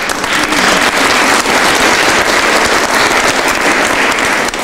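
Audience applauding, a dense steady clapping that stops near the end.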